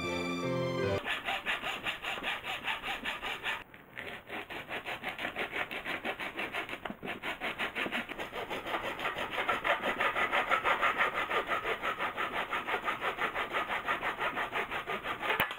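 Hand saw cutting a strip braced on a wooden block, in quick, even back-and-forth strokes, with two short pauses a few seconds apart.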